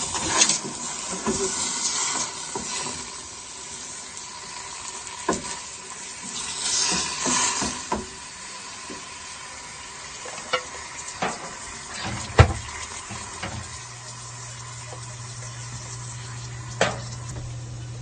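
Coconut milk sizzling in a pan as it is stirred to make latik topping, with sharp clinks of the spoon against the pan. A low steady hum comes in about two-thirds of the way through.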